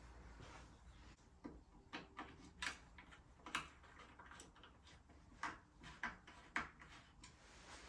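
About ten sharp clicks and taps at irregular spacing, starting about a second and a half in, over quiet room tone. They come from a bicycle rear brake caliper and a hex key being handled while the caliper is loosely bolted to the frame.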